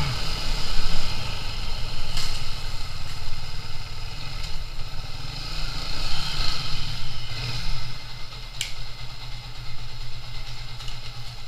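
Motorcycle engine running while riding, with a short click about two seconds in and another near nine seconds; it gets quieter over the last few seconds.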